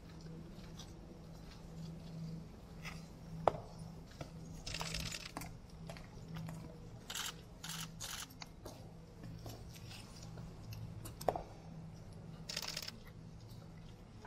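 Faint ambience of a waiting crowd with a low steady hum and scattered small clicks and rustles, including two sharper clicks about three and a half and eleven seconds in.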